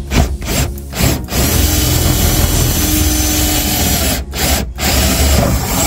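Ridgid cordless drill boring a hole through a wooden floor plate: motor whine under the bit's cutting noise through the wood. It starts in a few short bursts, then runs steadily, with two brief pauses about four seconds in.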